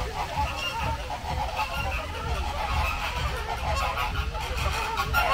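A flock of birds calling, many short goose-like honks overlapping without a break.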